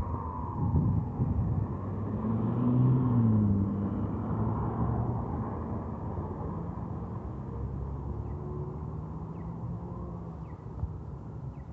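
Road traffic: vehicle engines rumbling, loudest about three seconds in with a brief rise in pitch, then fading. A faint falling siren wail sounds at the start, and a few short bird chirps come near the end.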